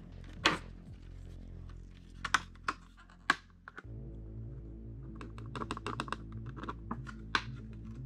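Scattered clicks and taps from handling a paint container and a metal airbrush, the loudest about half a second in and a quick run of small clicks in the second half.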